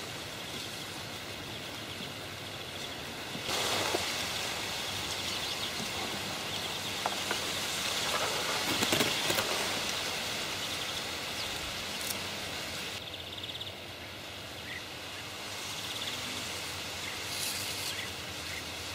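Outdoor ambience at a reedy pond bank: a steady hiss that grows louder and brighter from about four seconds in until about thirteen seconds, with a few faint clicks.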